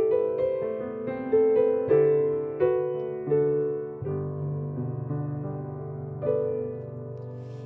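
Slow, gentle solo piano or electric piano music: single notes and chords struck every half second or so, each one fading away, with a low sustained chord under the last few seconds.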